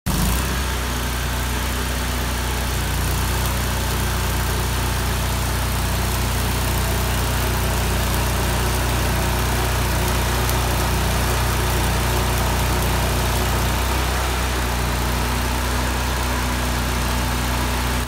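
Stick welding on steel oil field pipe: the arc crackling and hissing steadily, over a steady low machine hum.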